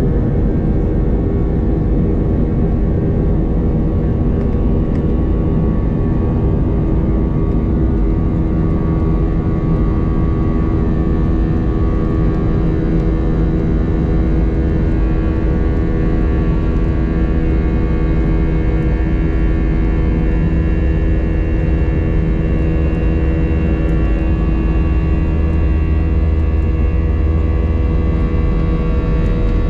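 Airliner's jet engines running steadily at low thrust as the plane taxis, heard from inside the passenger cabin: a loud low rumble with a steady multi-tone hum, growing a little heavier in the low end near the end.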